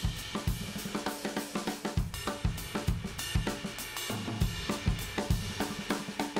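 Background music with a steady drum-kit beat: kick and snare about twice a second under busy hi-hat and cymbals.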